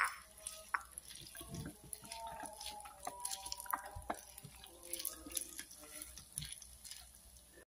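Silicone spatula stirring cooked rice in a small rice cooker's non-stick inner pot: faint, irregular soft taps and scrapes.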